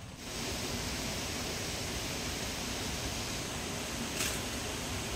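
A steady rushing noise with no distinct tones starts abruptly just after the beginning, and a short sharper rustle comes about four seconds in.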